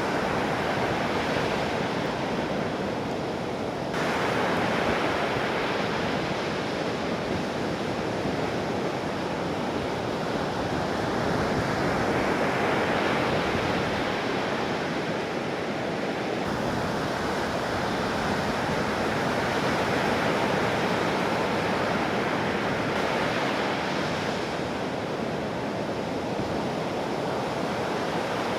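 Heavy ocean surf from a large typhoon swell, breaking and rushing, with wind on the microphone. The noise swells and eases as waves break, with a couple of sudden shifts in tone.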